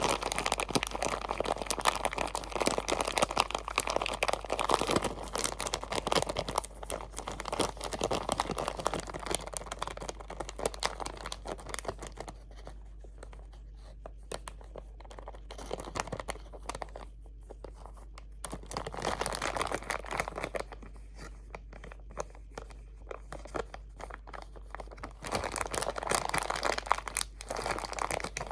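Crinkly material crumpled and handled right up against the microphone: dense crackling that thins to sparser, quieter crinkles through the middle and picks up again near the end.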